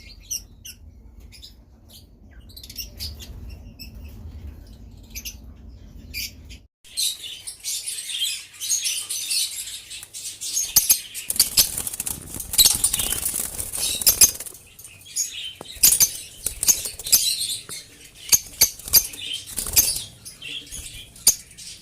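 Lovebirds chirping, with sharp wing flutters. Scattered calls for the first several seconds, then, after a brief break about seven seconds in, a dense, loud chatter of many birds.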